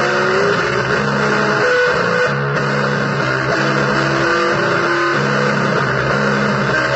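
Blues played on electric guitar, with a repeating low chord figure and single-note lines above it, under a thick layer of noisy distortion.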